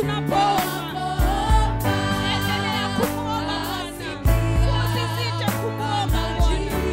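Live gospel praise singing: several women's voices sing with vibrato over instrumental backing, with steady low bass notes and a few drum thumps.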